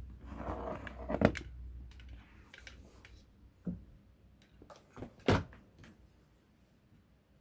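Scattered light knocks and taps with some rustling, as cats bat pipe-cleaner toys about and a hand moves a plastic charger adapter and its cord on a wooden floor. The sharpest taps come about a second in and about five seconds in.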